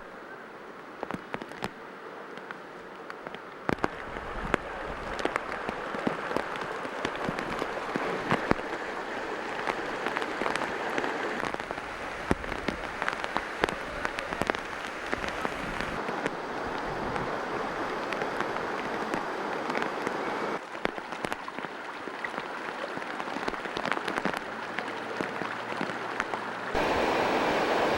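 Heavy typhoon rain falling, a steady hiss with many sharp drop hits close by. The sound changes abruptly a few times.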